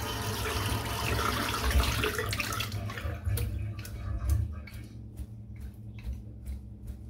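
Tap water running into a sink as a shaving brush is rinsed, dying away about three seconds in; then a string of short, sharp flicks, about three a second, as the wet brush is shaken out.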